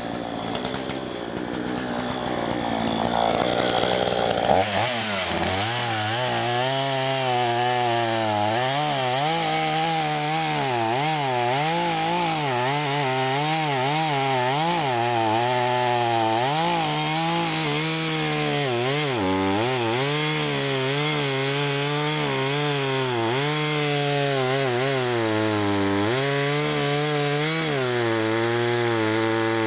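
Two-stroke chainsaw running at high throttle while bucking a thick oak log into firewood rounds, its engine pitch wavering up and down as the chain bogs and recovers in the cut. The sound shifts about four and a half seconds in to a steadier, stronger engine note under load.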